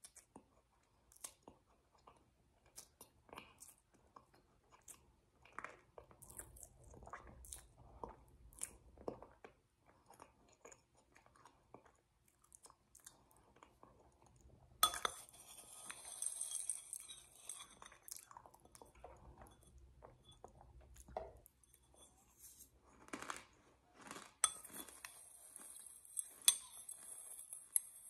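Close-up mouth sounds of someone chewing and crunching a crushed purple snack, with wet lip smacks, in many short irregular crunches. About halfway in, a steady high hiss comes in, fades, and returns near the end.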